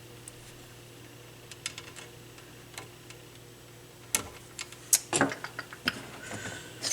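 Small sharp clicks and scrapes of a small screwdriver working against metal, prying out the tiny retaining clips on a receiver's dial pointer lamp holder. The clicks are sparse at first and come thick and fast about four to six seconds in.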